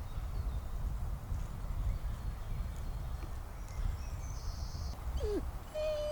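Outdoor woodland ambience: a steady low rumble with a few faint high bird chirps. About five seconds in comes a short falling call, and near the end a long steady pitched call begins.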